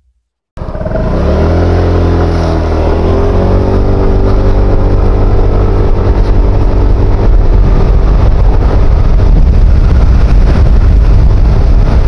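SYM Husky 150 scooter's single-cylinder engine accelerating hard from about half a second in, its note rising over the first couple of seconds and then holding steady, with wind rushing past the microphone as speed climbs.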